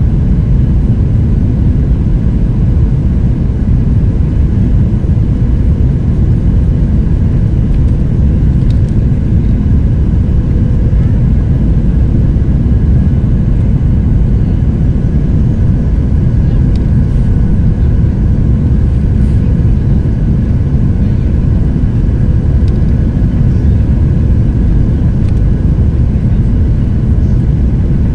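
Jet airliner cabin noise heard from a window seat over the wing: a steady, deep rush of the engines and airflow during the low final approach to landing, with a faint steady hum above it.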